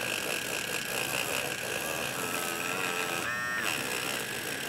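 Derwent battery-powered electric eraser running, its small motor buzzing steadily while the spinning eraser tip rubs out indigo colored pencil on drawing paper; the pitch wavers slightly partway through as the tip presses on the paper.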